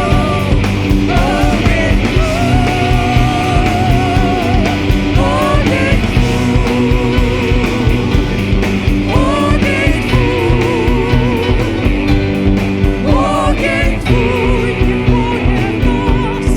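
Live worship band playing a full rock-style arrangement with a steady drum beat and sustained bass and chords, a wavering melody line with vibrato gliding between long held notes on top.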